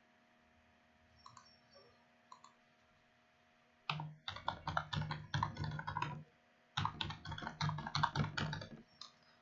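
Computer keyboard typing in two quick runs of keystrokes, each about two seconds long, with a short pause between, as login codes and passwords are entered. A few faint clicks come before them.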